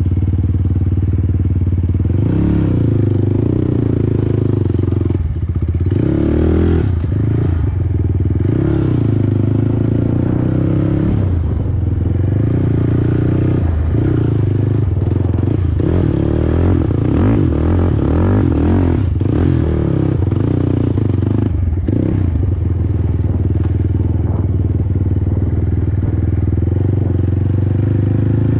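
Single-cylinder four-stroke engine of a Honda TRX450R quad under way. Its pitch rises and falls again and again as the throttle is opened and closed, with short sharp drops between pulls.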